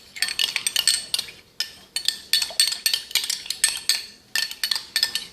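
A spoon stirring in a glass, clinking quickly and repeatedly against the sides with short bright rings, with two brief pauses.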